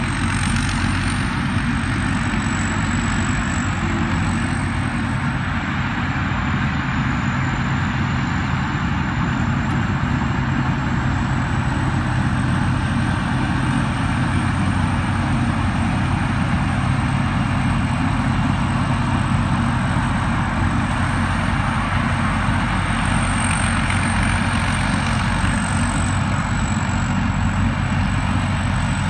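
Rice combine harvester's diesel engine and machinery running steadily, a dense mechanical din with a thin high whine that wavers slightly in pitch.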